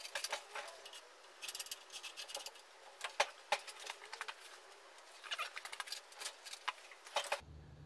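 Irregular light clicks and knocks, some in quick clusters, as an engine hanging from an engine crane on lifting chains is shifted and worked into place by hand.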